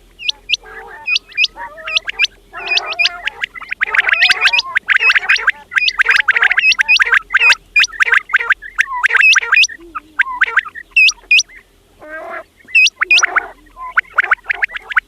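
Quails calling: many short, sharp high notes, often in quick twos and threes, over lower rasping chatter.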